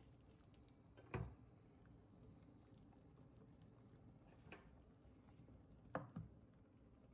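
Near silence over faint room noise, broken by a few soft, brief knocks: one about a second in, one midway, and a close pair near the end.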